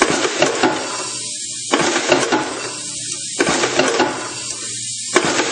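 Milford Model 38 riveting machine cycling: bursts of rapid mechanical clattering from the riveting head, each about a second and a half long, repeating roughly every 1.7 seconds, four times, over the machine's steady hiss and hum.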